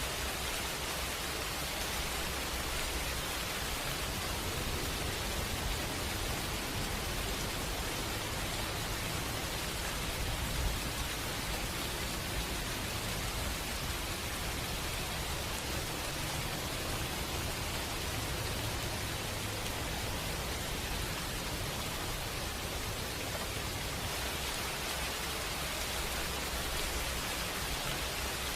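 Steady, even hiss of falling or rushing water, with a slight swell about ten seconds in.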